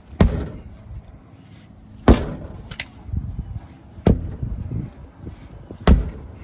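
Four hard metallic blows, struck about every two seconds, each with a brief ring: striking at a tractor tire's bead to break it loose from the rim.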